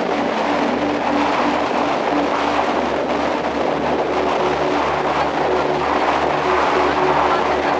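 A motor running steadily under a dense rushing noise, with a regular low pulse throughout.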